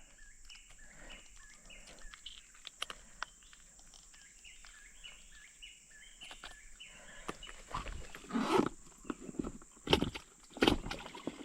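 Faint outdoor ambience of short, quickly repeated chirps over a thin steady high tone, then several louder knocks and rustles near the end.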